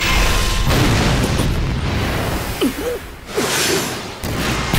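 Anime energy-attack sound effects: a loud rushing blast that sets in at once and fades briefly about three seconds in, then a second blast builds.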